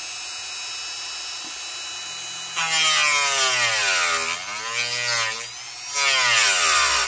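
Dremel rotary tool with a cutoff wheel running with a steady whine, then grinding loudly into a plastic model-kit part about two and a half seconds in to cut away flash, its pitch sinking and rising again. The grinding eases briefly about a second before the end, bites in again, and stops abruptly.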